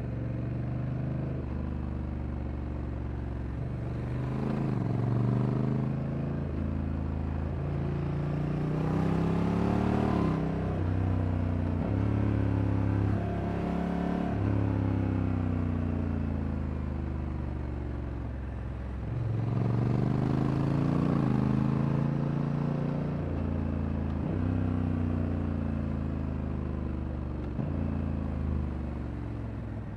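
Honda Africa Twin Adventure Sports 2024's parallel-twin engine being ridden. It pulls up in pitch several times, with stepped drops as the DCT gearbox shifts, and eases off in between.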